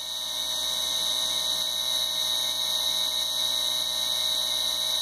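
Razor E300 scooter's 24 V 250 W brushed DC motor running at full speed, about 3,500 RPM, on a PWM speed controller: a steady high-pitched whine that swells slightly in the first second and then holds.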